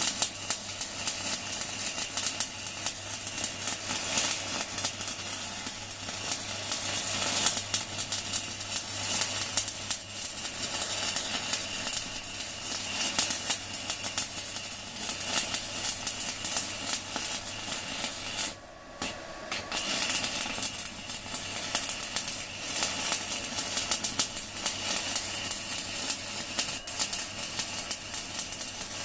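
Stick (MMA) welding arc burning a 4 mm UONI basic electrode at 160 A from a small inverter welder, crackling and hissing steadily. The arc cuts out for about a second a little past halfway, then strikes again and carries on crackling.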